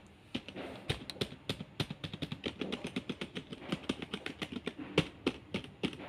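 Typing on a Zebronics ZEB-KM2100 USB keyboard: a fast, steady run of soft key clicks, several a second, quiet enough to be called a very silent keyboard.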